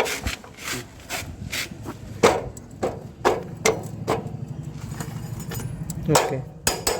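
Sharp metal knocks and scraping as a motorcycle's rear axle and spacer collar are worked back through the wheel hub, with a quick low rattle in the middle.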